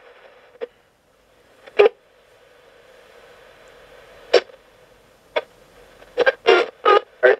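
Coopbox 26 ghost box radio sweeping the FM band in squelch mode. Short, clipped snippets of broadcast sound cut in and out between quiet gaps with faint hiss: single blips about two, four and a half and five and a half seconds in, then a quick run of choppy fragments near the end.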